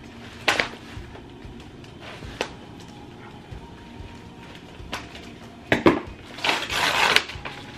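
Brown kraft paper and plastic wrapping crinkling as taped packaging is pulled off by hand. There are a few sharp crackles spread through, then a longer spell of rustling near the end.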